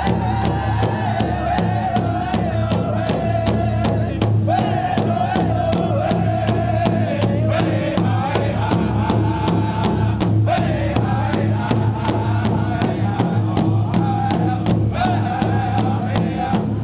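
Cree powwow drum group singing together in high voices over a large shared drum struck in a steady, even beat. The sung phrases start high and slide downward, with fresh phrases beginning about four seconds in, about ten seconds in and near the end.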